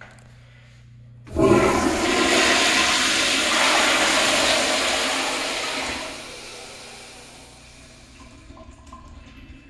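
Kohler Kingston wall-hung 1.28 gpf toilet flushing through its flushometer valve. A sudden rush of water begins about a second in, stays loud for some five seconds, then fades to a trickle as the bowl refills.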